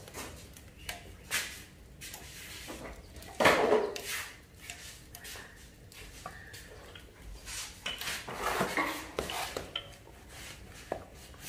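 Scattered knocks and clatter of a wooden rolling pin and utensils against a wooden board as roti dough is shaped and rolled out, the loudest knock about three and a half seconds in.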